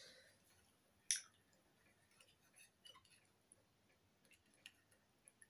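Quiet eating of noodles: faint chewing and small clicks of a fork and spoon, with one louder short sound about a second in.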